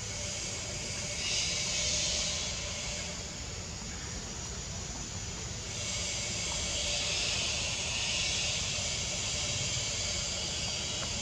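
Steady high-pitched outdoor hiss that swells louder about a second in, eases off, then swells again about six seconds in and holds.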